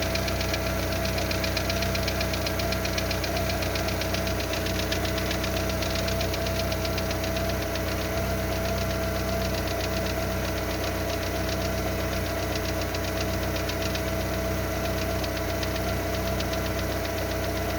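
Lada Largus's 1.6 16-valve VAZ-21129 engine idling steadily with a rapid, even ticking knock from the valve train. The knock has not been cured by new hydraulic lifters, and the owner finds that it dies away as the engine warms. The idle is louder than normal because of a torn exhaust flex pipe.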